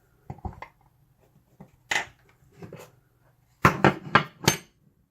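Metal clinks and knocks as a picked padlock and tools are handled on a hard surface: a few light clicks, then a cluster of three or four louder knocks near the end.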